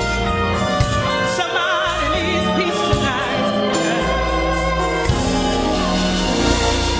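Gospel song: a lead voice singing with wide vibrato over a band with steady bass notes and regular drum hits.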